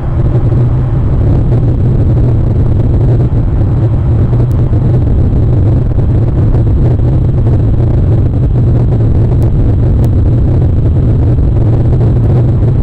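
Steady, loud low rumble with no distinct events.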